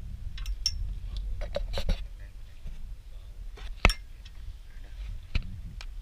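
Light clicks, clinks and knocks of hands working a caught fish and its hook and line over a plastic fish basket, with one sharp knock about four seconds in, over a low steady rumble.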